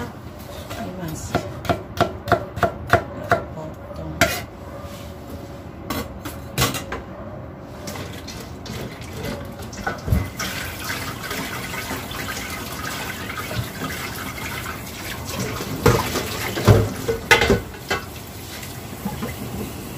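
Strips of young papaya being washed by hand in a bowl of water: water sloshing and splashing, with a quick run of clicks and knocks in the first few seconds and a few louder knocks near the end.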